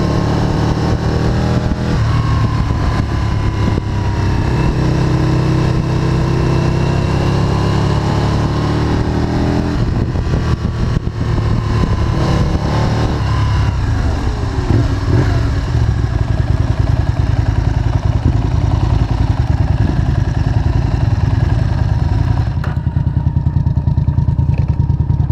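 Aprilia RSV sport bike's engine heard from on board while riding: it climbs in pitch through several accelerations, eases off for a moment midway, then runs hard and steady at high revs.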